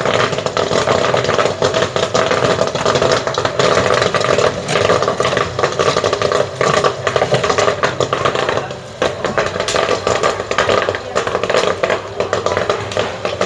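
Gas-fired popcorn machine with a 12-volt stirrer running in the pan: a steady mechanical running noise with constant clicking and rattling of popping kernels and popcorn being stirred against the metal pan.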